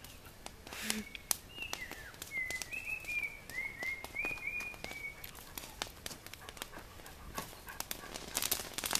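A bird calling a quick series of short chirps, about a dozen over some three seconds, with scattered faint clicks in the background.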